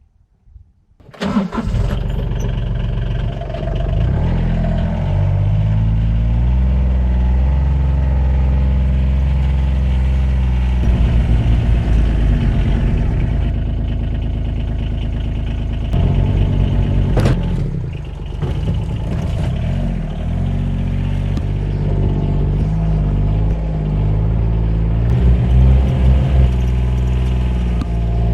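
An engine starts about a second in and keeps running, its speed rising and falling.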